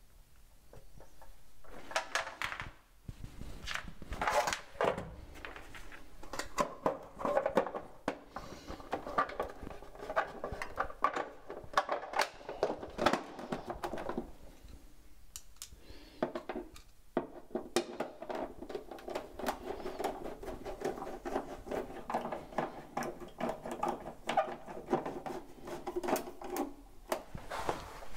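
Clatter, knocks and clicks of hard plastic and metal being handled as the plastic terminal cover of an immersion heater is fitted back onto a hot water cylinder.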